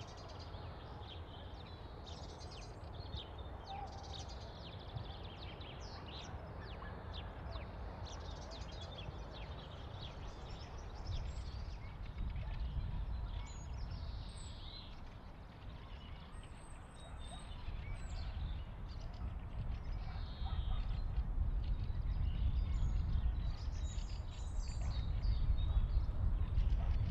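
Small birds chirping and singing, many short high calls scattered throughout, over a low outdoor rumble that grows louder in the second half.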